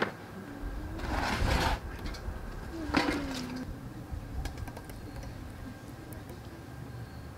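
Kitchenware being handled: two short bursts of clatter and scraping, one about a second in and one about three seconds in, as a plastic bowl is worked over a steel basin to empty out yogurt, followed by softer faint ticks.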